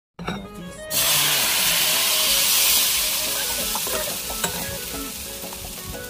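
Thin kefir pancake batter sizzling in a hot oiled frying pan. The sizzle starts suddenly about a second in, when the batter meets the oil, and slowly dies down as the pancake sets. Soft music plays underneath.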